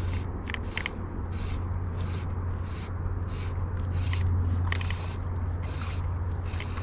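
Fly line being stripped in by hand through the rod guides in quick pulls while playing a hooked fish, giving short hissing zips about two a second over a steady low rumble.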